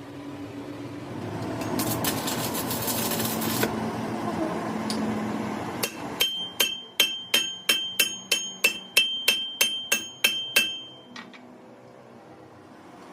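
A steady rough noise, then a fast, even run of about sixteen hammer blows on steel, some three or four a second, each ringing metallically, stopping suddenly about three-quarters of the way through.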